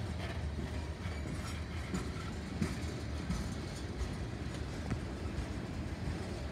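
Freight train of tank cars rolling past close by: a steady rumble of steel wheels on the rails, with scattered clicks and knocks.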